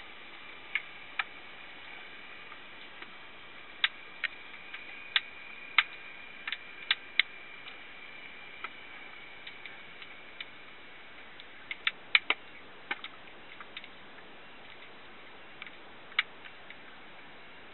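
Irregular sharp clicks and snaps picked up underwater, some single and some in quick clusters, over a steady hiss.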